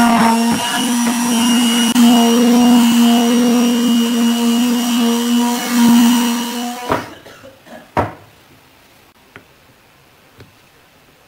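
Electric palm (quarter-sheet finishing) sander running steadily on pine boards, a loud, even hum that stops about seven seconds in. A couple of light knocks follow.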